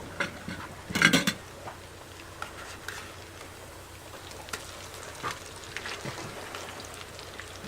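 Salmon patties sizzling as they fry in hot grease in a pan, with a short clatter of a utensil against the pan about a second in and scattered light ticks.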